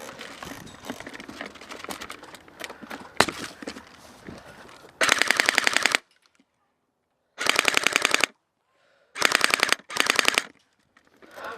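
An airsoft electric AK47 rifle, a Cybergun, firing four full-auto bursts with rapid evenly spaced shots. The first two bursts last about a second each and the last two are shorter and close together. Before them come a few seconds of rustling handling and movement noise with a sharp click.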